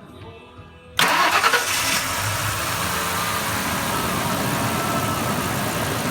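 1997 Ford F-150 CNG truck's engine starting about a second in, louder for about a second as it catches, then settling into a steady idle. The engine has a misfire, traced to a bad ignition coil.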